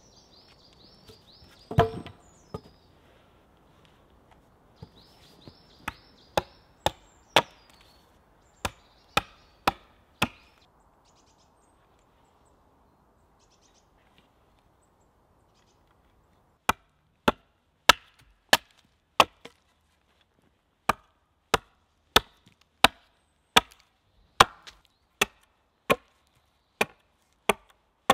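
Hatchet chopping a point onto a green wooden stake propped on a chopping block. Two runs of sharp strikes are separated by a pause of several seconds, and the second run comes steadily at about three strikes every two seconds. There is one heavy thump about two seconds in.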